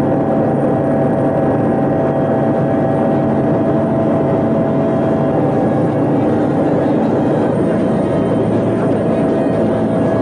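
Helicopter engine and rotor noise heard inside the cabin in flight: a loud steady drone with a constant high tone running through it.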